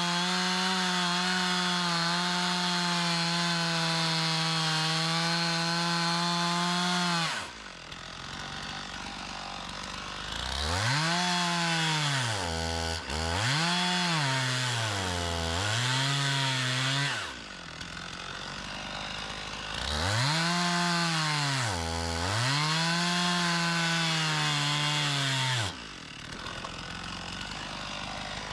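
A Stihl MS391 two-stroke chainsaw cutting firewood. It runs at full throttle for about seven seconds, drops to idle, then twice revs hard again with its pitch dipping and recovering several times, and falls back to idle near the end.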